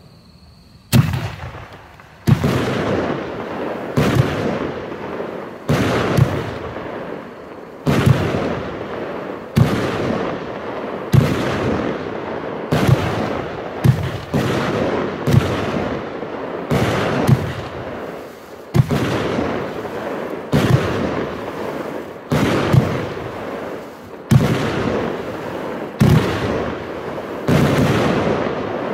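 A Funke Kamuro Variations 20-shot, 30 mm firework battery firing shot after shot, starting about a second in, at roughly one shot every one and a half to two seconds. Each shot is a sharp bang followed by a fading rush as the burst of gold-rain stars falls away.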